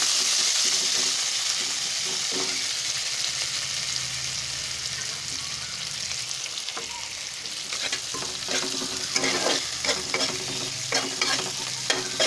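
Sliced onions sizzling in hot oil in a karahi, stirred with a metal spatula. From about eight seconds in, the spatula scrapes and knocks against the pan again and again.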